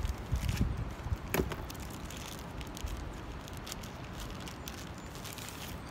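Steady rushing of wind and a small waterfall, with a few light clicks and knocks of handling, the sharpest about a second and a half in.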